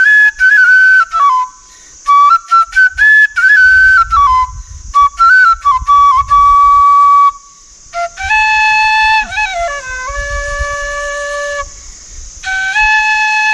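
Bansuri, an Indian bamboo transverse flute, played solo. It starts with a quick run of short, separated notes in a high register, pauses for a breath about seven seconds in, then moves to longer held notes lower down with slides between them.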